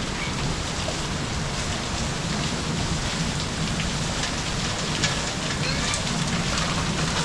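Heavy rain falling steadily, with the sharp taps of individual drops striking nearby surfaces.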